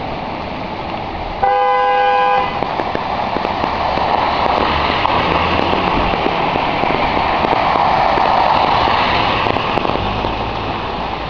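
Water rushing steadily out of a bursting storm sewer geyser, growing somewhat louder in the middle. About one and a half seconds in, a vehicle horn honks once for about a second, the loudest sound.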